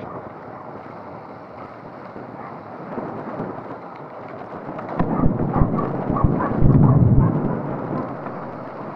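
Mountain bike with a rigid fork being ridden over the trail, its frame and parts rattling and knocking under wind rumble on the microphone. The jolts grow loudest about five to seven seconds in.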